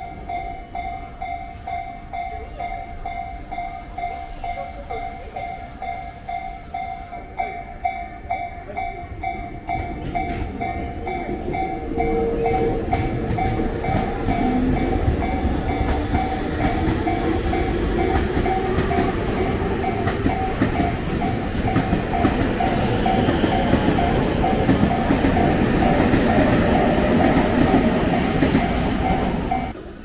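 Railway level-crossing alarm bell ringing in a rapid, even repeat. A Tobu Tojo Line train passes through the crossing, its running noise swelling about twelve seconds in and staying loud over the bell. The sound cuts off suddenly just at the end.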